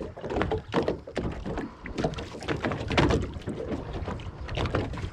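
Water slapping and sloshing against the hull of a small boat, with irregular knocks and thuds.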